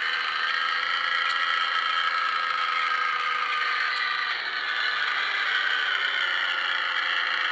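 Bus horns (telolet-type multi-tone air horns) sounding a sustained chord of several tones that shifts a little past halfway through.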